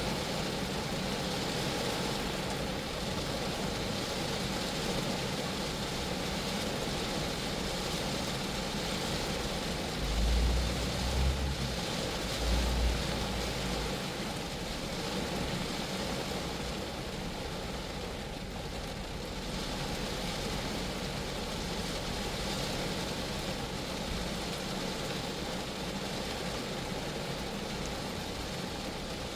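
Steady rain falling on a Geo Metro's body and glass, an even patter with a few brief low rumbles about ten and thirteen seconds in.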